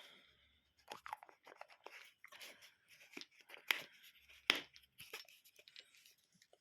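Irregular crackling, crunching and rustling close to the microphone, with a few sharper snaps, two of them louder about two-thirds of the way through.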